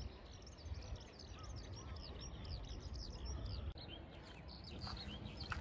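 Birds chirping: many short, high calls in quick succession over a low, steady rumble.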